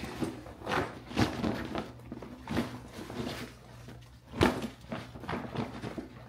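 A Gregory duffel bag's shiny coated nylon rustling and crinkling as it is shaken out and handled, in a series of sharp swishes, the loudest about four and a half seconds in.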